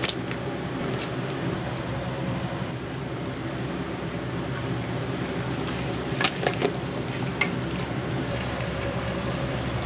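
Kitchen cooking sounds: a steady hiss over a low hum, with a few sharp clinks of utensils, several of them about six to seven and a half seconds in.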